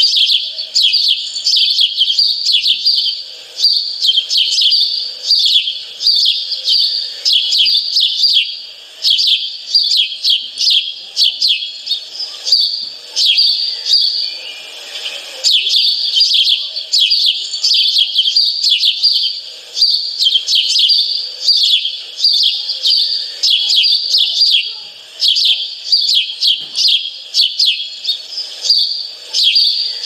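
A dense chorus of many small birds chirping rapidly and without pause, with brief lulls every few seconds.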